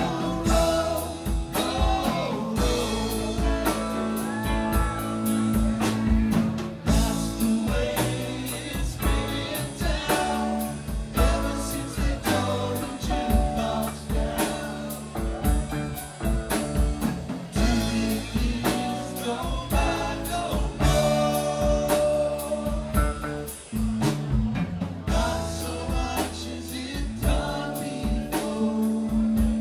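Live rock band playing with singing: electric guitars, drum kit and keyboards under a male lead vocal.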